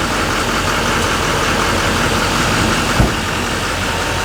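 GMC Sierra 2500HD's 6.6 L Duramax V8 turbo-diesel idling steadily, running after a FASS fuel lift pump install. A single sharp knock sounds about three seconds in.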